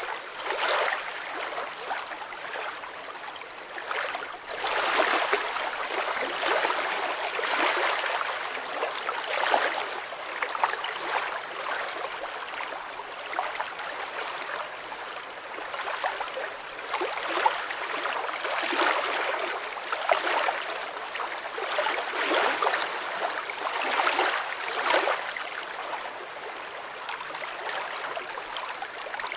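Water flowing with a continuous gentle rush and trickle that swells and eases every few seconds.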